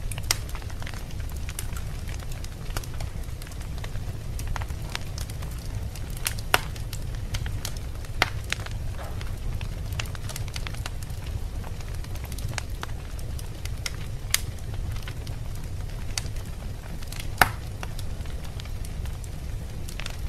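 Wood fire crackling in a fireplace: a steady low rumble of flames with scattered sharp pops, the loudest about six and a half seconds in and again about seventeen seconds in.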